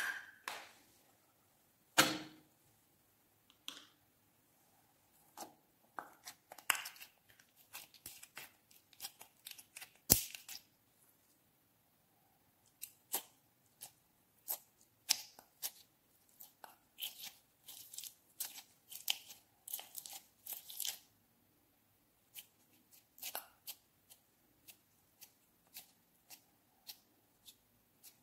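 Sticky clear slime being pulled and squeezed out of a small plastic tub by hand, making scattered short wet crackles and pops, with two sharper knocks about two and ten seconds in.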